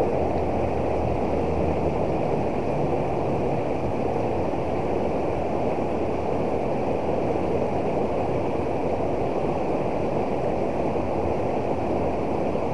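River water rushing steadily over a small weir and through shallow rapids.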